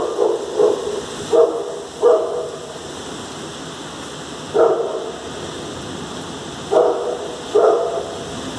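A dog barking in short, irregular bursts over the steady hiss of heavy rain and wind. Four barks come in the first two seconds, one about halfway, and two near the end.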